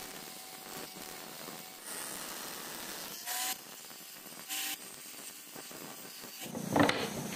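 Small electric angle grinder running and grinding metal at the end of a wooden stick, throwing sparks, with two short louder bursts of contact in the middle and a louder scrape near the end.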